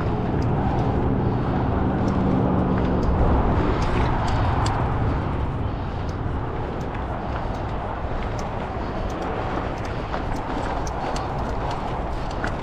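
Riding a mountain bike on rocky, rooty singletrack: a steady rushing noise from the ride, with scattered small clicks and rattles from the bike and the trail.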